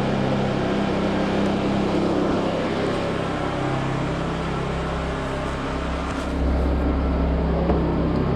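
Two Honda portable generators running steadily together, their engines warm and burning off the last of a small splash of fuel. The engine tones shift a little about three and a half seconds in and again near six seconds.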